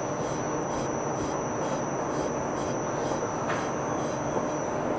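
Steady machine-shop background noise, with faint regular scraping ticks, about two a second, from a steel shaft nut spun by hand down a progressing cavity pump shaft's threads. The nut runs on smoothly, a sign the threads are clean. There is one brief clink about three and a half seconds in.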